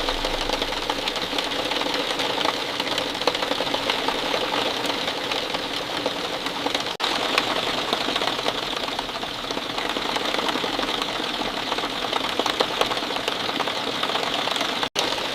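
Steady rain falling, a dense continuous patter of drops, with a momentary drop-out about seven seconds in.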